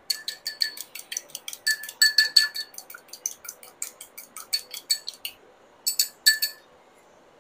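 Chopsticks beating raw eggs in a white ceramic bowl: quick clinking strikes against the bowl, several a second, each with a short ring. The strikes stop about five seconds in, then a last few come near the end.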